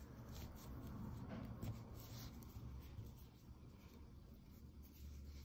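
Faint rustling of cotton yarn and light taps of metal knitting needles as stitches are knitted by hand.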